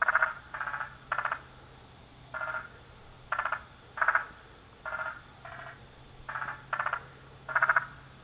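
Several frogs calling in turn, each call a short pulsed trill of about a third of a second, given in quick runs of two or three that overlap and answer one another.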